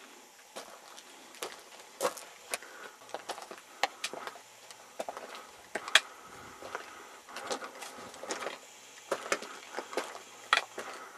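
Footsteps crunching and scuffing on loose stones and rock, an irregular run of sharp clicks and crunches, some in quick clusters.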